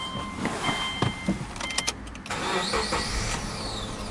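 A dashboard warning chime dings a few times among some clicks. Then the Subaru Legacy's EJ20 2.0-litre flat-four starts a little over two seconds in, its revs flaring briefly and settling back toward idle.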